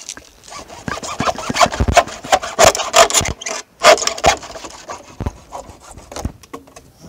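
Hand saw cutting an opening in the top of a plastic rain barrel: quick, uneven sawing strokes, with a short break about three and a half seconds in.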